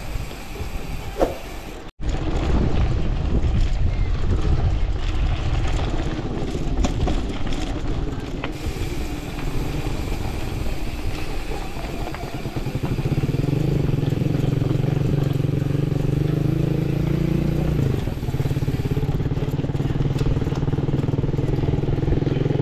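Bicycle tyres rolling over a dirt and gravel track, picked up by a camera on the handlebars: a continuous rough rumble and crunch with rattling. It cuts out for an instant about two seconds in, and a steadier low hum joins about halfway through.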